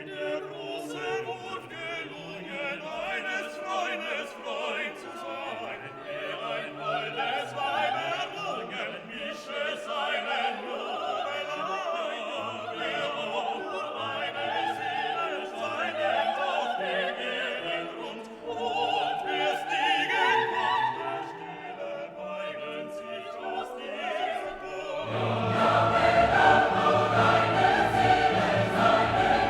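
Background music: classical-style choral music with voices singing over an orchestra. It swells fuller and louder about 25 seconds in.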